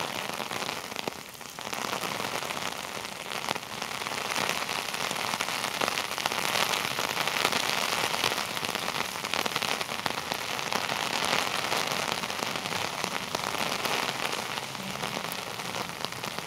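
Heavy rain hitting an umbrella held overhead: a dense patter of many fine drops, briefly lighter about a second in and heavier from about four seconds in.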